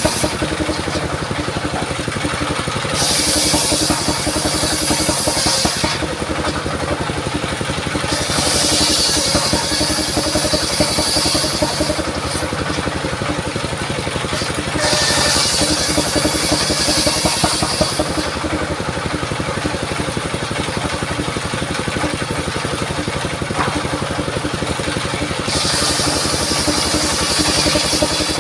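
Engine-driven portable circular saw running steadily while its blade cuts mahogany, with a high rasp that comes and goes in four spells of about three seconds each as the blade passes through the wood.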